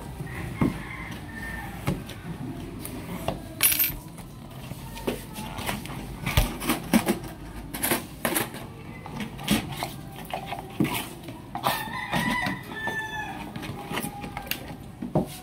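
Cardboard boxes being handled and torn open, with repeated crinkling, rustling and small knocks, and a plastic tub being pulled out. A rooster crows in the background about twelve seconds in.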